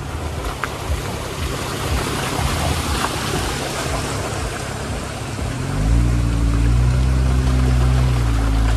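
Jeep Wrangler JL's tyres rolling and splashing over a wet, rocky trail, with wind rushing over an outside-mounted microphone. About six seconds in, a deep, steady low drone comes in and holds.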